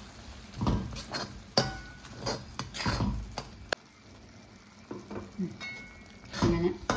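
Breadfruit theeyal being stirred in a pan as the ground theeyal-powder paste is mixed in: a series of uneven stirring strokes, with one sharp tap a little past halfway.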